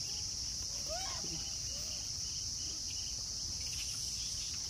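Steady, high-pitched drone of an insect chorus, unbroken and even.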